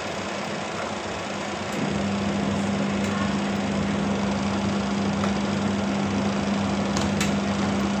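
Realme TechLife 7 kg semi-automatic washing machine running: a steady motor hum cuts in about two seconds in and holds over a continuous mechanical whir, with a couple of light clicks near the end.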